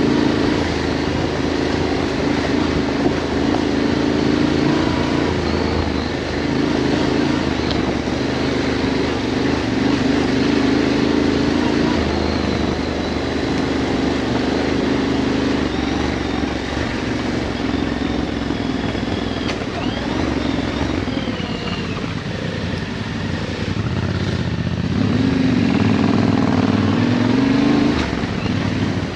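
Yamaha Ténéré 700's parallel-twin engine running under way at a fairly steady pace in a low gear on a dirt track. Near the end the revs rise briefly, then drop back.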